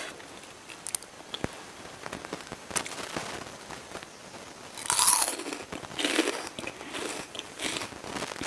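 Bite into a raw bilimbi (belimbing wuluh) fruit coated in sambal: a loud crisp crunch about five seconds in, followed by chewing.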